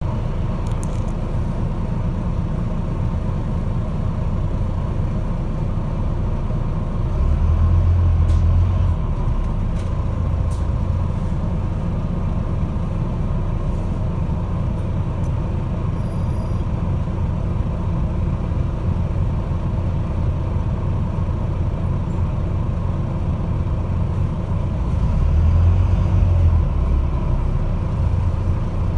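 Diesel engine of a Volvo double-decker bus, heard from inside the passenger deck: a steady low groaning rumble that swells louder twice, about seven seconds in and again near the end.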